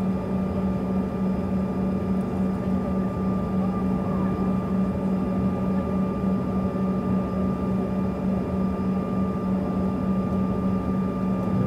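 Airliner cabin noise while taxiing: the jet engines at low power give a steady low hum with a thin, steady high whine above it, heard from inside the cabin.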